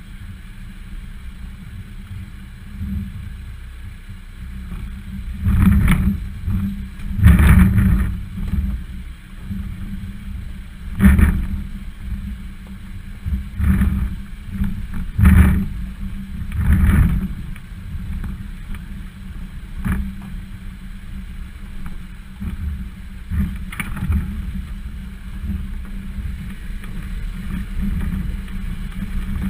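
Volvo XC60 crawling over a rocky 4x4 trail, heard through a camera mounted on its bumper: a steady low rumble with a series of loud knocks and thuds as the wheels drop over rocks, most of them in the middle stretch and thinning out near the end as the track turns to smoother dirt.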